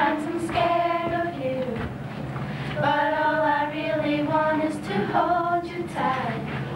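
Young girls' voices singing together, with several long held notes.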